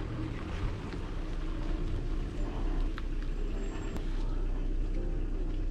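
Steady low rumble of a vehicle on the move, with a couple of faint clicks.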